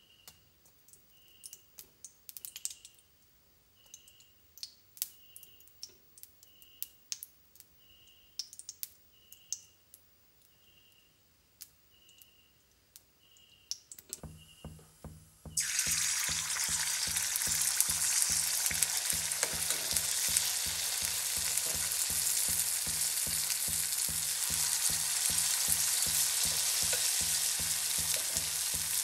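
Faint scattered clicks and a soft beep about once a second, then loud frying starts suddenly about halfway through: chicken pakkavada batter sizzling in hot oil in an iron kadai, over a low pulsing hum.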